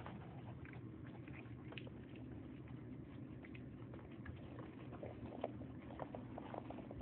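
Puppies eating their first solid food from a bowl: a scatter of small wet clicks and smacks, thicker in the second half, over a steady low hum.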